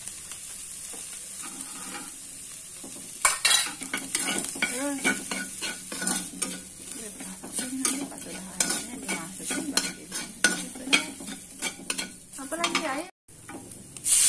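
Beef, chilies and garlic sizzling in hot oil in a wok, with a slotted metal spatula scraping and clattering against the wok as the food is stirred, busier from about three seconds in. The sound cuts out completely for a moment near the end.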